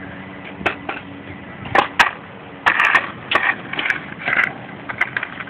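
Skateboard on a concrete sidewalk: a few sharp clacks, then short bouts of rough scraping and rolling noise.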